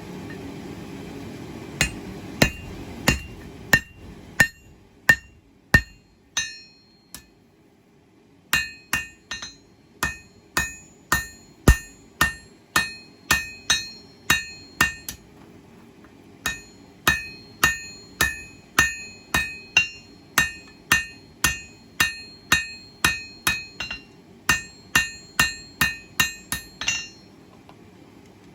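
Hand hammer striking hot high-carbon steel on an anvil, about two blows a second, each with a bright ringing note, forging a knife's handle preform. The hammering pauses briefly about seven seconds in and stops near the end, over a steady low hum.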